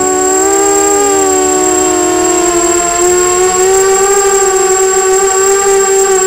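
250-size FPV quadcopter's electric motors and propellers whining in flight. The pitch wavers and dips in the first couple of seconds, then rises and holds steady from about three seconds in. A thin, steady high whistle sounds throughout.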